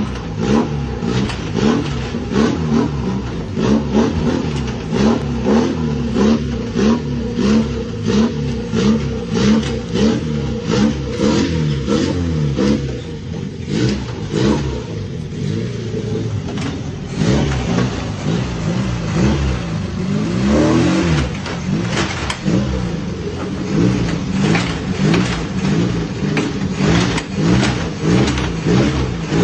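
Car engine running with a rough, sneeze-like puff or sniff repeating in a regular rhythm about once a second, the engine pitch wavering. It is quieter for a few seconds past the middle, then the engine pitch briefly rises and falls.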